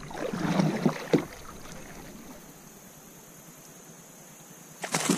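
Kayak and river-water sounds while a hooked fish is fought on a bent rod: irregular knocks and water noise for the first second or so, then a faint steady hiss, with a louder burst of activity near the end.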